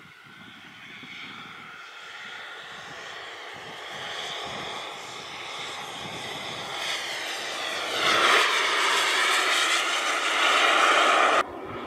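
Radio-controlled Airworld ME262 model jet's turbine engines whooshing as the jet flies past, growing steadily louder as it comes in low. The sound is loudest over the last few seconds and cuts off suddenly near the end.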